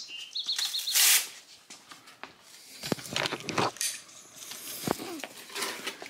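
A bird chirps a short run of quick repeated notes, then a brief loud hiss about a second in. Scattered knocks and rustles follow.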